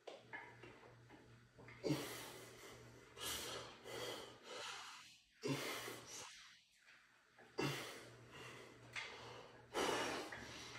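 A man breathing hard with the effort of a seated dumbbell shoulder press: a sharp, forceful exhale about every two seconds, one with each rep.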